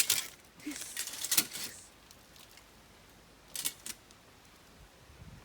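Metallic clinking and rattling from a mechanical coconut tree climber as it is worked up the trunk: a sharp clank at the start, a cluster of rattles about a second in, and one more about three and a half seconds in.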